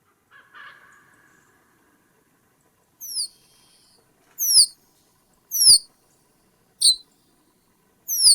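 A bird calling: five sharp, high notes, each sliding quickly down in pitch, repeated roughly every second, after a fainter lower call near the start.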